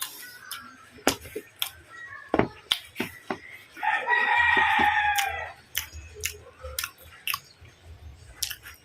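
A rooster crows once, starting about four seconds in and lasting over a second, over scattered sharp clicks and smacks of someone eating.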